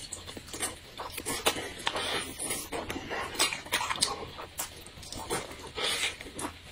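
Close-miked eating sounds: noodles in dark sauce slurped and chewed, with irregular wet smacks and sharp little clicks of the mouth.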